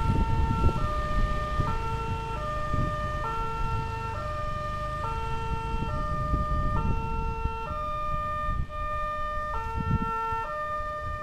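Electronic warning alarm of a railway level crossing's warning system, sounding a two-tone electronic signal that alternates between a higher and a lower pitch about every half second, warning road users of a train.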